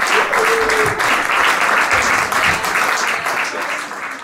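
Audience applauding with dense clapping, fading out near the end.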